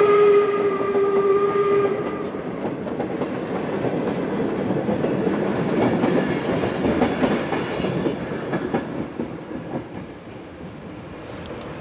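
A replica 1860s-design steam locomotive's whistle sounds to the end of a long blast, sagging slightly in pitch as it passes, and cuts off about two seconds in. Then its coaches rumble and clatter past on the rails, loudest midway, and fade away as the train leaves.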